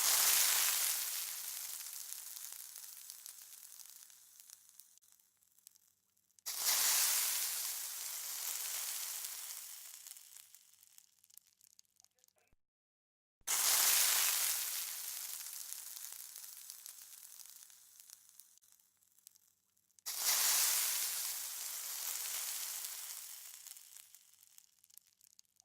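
A dramatic sound-effect crash, like a cymbal hit, repeated four times: each starts suddenly with a bright hiss and fades away over about six seconds.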